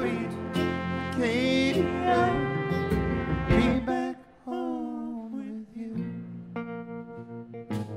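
Live band playing an instrumental passage of a blues-folk song: a harmonica lead with bending notes over acoustic and electric guitar. The music drops out briefly a little past halfway, then comes back sparer and quieter.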